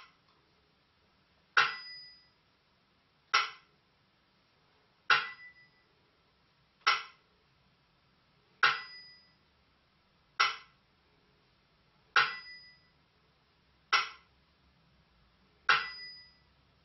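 Burmese si and wa keeping time for dance: about ten evenly spaced strokes, one every second and three-quarters. The small bell-cymbals (si) ring briefly on every other stroke, and the dry clack of the bamboo clapper (wa) falls between them.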